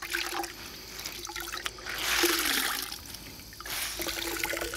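A cloth soaked in a bucket of water mixed with tick repellent is squeezed and wrung out, the liquid splashing and trickling back into the plastic bucket in two surges, the first and louder about two seconds in.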